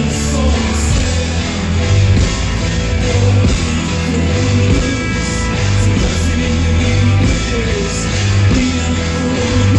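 Live rock band playing loudly, with a heavy bass line, drums and guitar, and a man singing over it.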